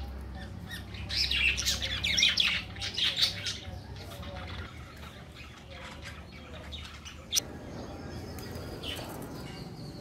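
Caged budgerigars chattering and squawking, loudest in a busy burst of calls about one to three and a half seconds in, then softer chatter. A single sharp click about seven seconds in.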